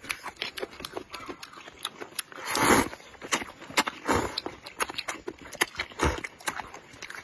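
Noodles in spicy broth being slurped and chewed close to the microphone. There is a long loud slurp about two and a half seconds in and shorter slurps near four and six seconds, with wet smacking and clicking mouth sounds between.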